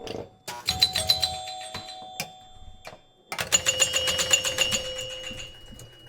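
Recorded pinball machine sound effect: bells ringing over rapid mechanical clicking and knocking, in bursts, the loudest starting about three and a half seconds in and then fading.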